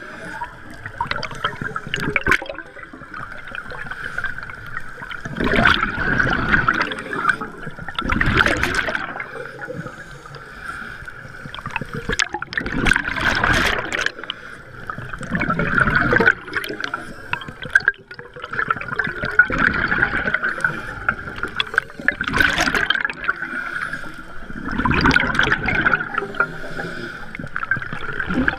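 Scuba diver breathing through a regulator, heard underwater: exhaled bubbles rush and gurgle past the camera in bursts every few seconds, over a steady thin tone.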